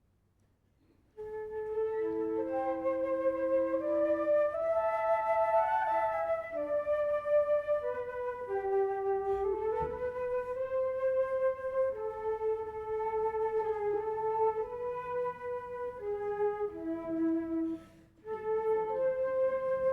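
Flute playing a slow melody that begins about a second in, with a short break between phrases near the end.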